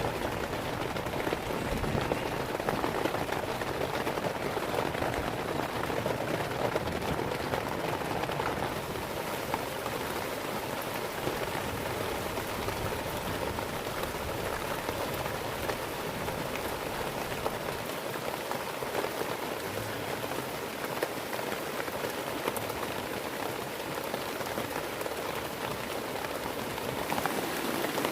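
Heavy rain falling steadily, with a dense even sound of drops striking a surface.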